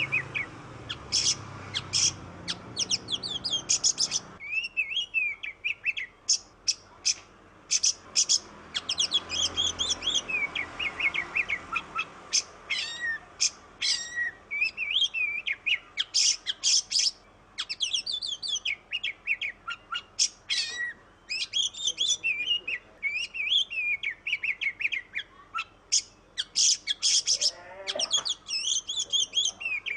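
Oriental magpie-robin (kacer) singing a long, varied song of rapid high chirps, trills and sliding whistled phrases, with barely a pause. It is the full repertoire song, rich in phrases learned from other birds, that keepers call 'bongkar isian'.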